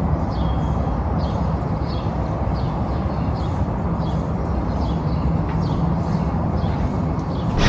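Outdoor city ambience: a steady low rumble under a bird calling over and over, short high chirps that drop in pitch, about two a second.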